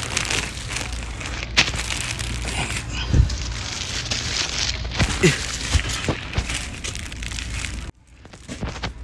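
Plastic-wrapped toilet paper packs crinkling and rustling as they are shifted and pushed against, with scattered knocks.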